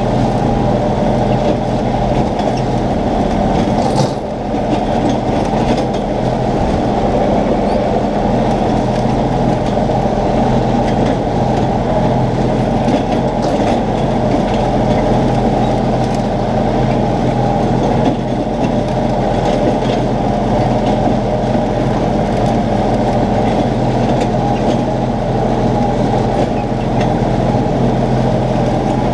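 Compact tractor engine running steadily under load while mowing grass, with a rhythmic mechanical clatter over a steady drone and a brief dip in loudness about four seconds in.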